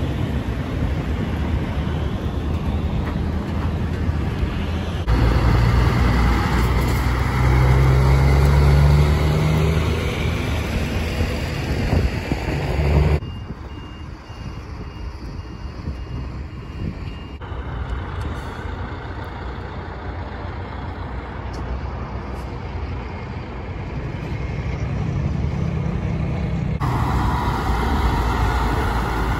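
Heavy trucks' diesel engines running, one revving up about seven seconds in, with a truck's reversing beeper sounding in even pulses around the middle.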